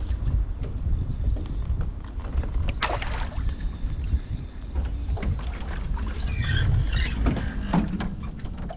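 Canoe on the water while a big fish is fought on rod and reel: a steady low rumble with water and hull noise. A sharp knock comes about three seconds in, and a brief wavering higher-pitched sound comes a little after six seconds.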